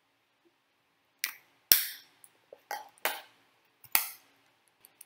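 Plastic makeup compacts and a hand mirror being set down and picked up: a string of sharp clicks and knocks, about half a dozen over two to three seconds, the loudest near two seconds in.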